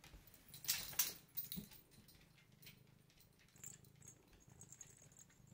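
Cat swatting at a feather-and-string wand toy: quiet soft rustles and scrapes of the toy, loudest about a second in, then faint scattered ticks and a faint high tinkling in the last two seconds.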